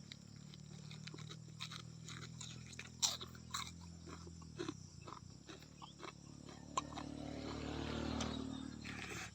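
A person chewing banana pseudostem with wet, crunchy bites and mouth clicks, over a steady low hum that fades around the middle and swells again near the end.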